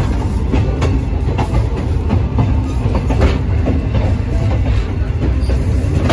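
Passenger train rolling along the track, heard from aboard: a steady low rumble with irregular clacks of the wheels over rail joints.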